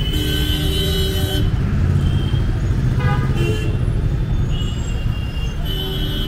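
Vehicle horns honking over a steady rumble of street traffic: a horn blast lasting about a second and a half at the start, a short one about three seconds in, and another near the end.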